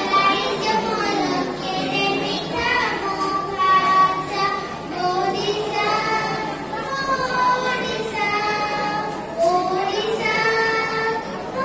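A child singing solo into a microphone, with long held notes.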